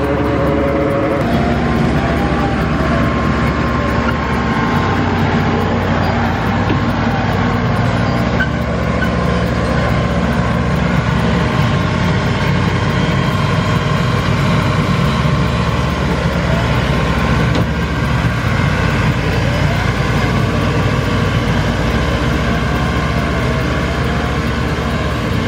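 New Holland T5 tractor's diesel engine running steadily as the tractor drives over a dirt road.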